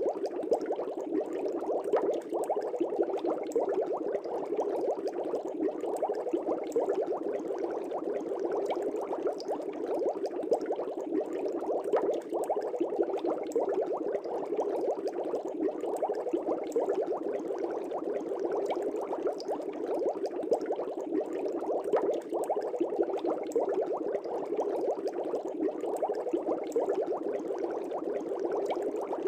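Aquarium air bubbles bubbling steadily through the water of a fish tank, a dense, unbroken low bubbling.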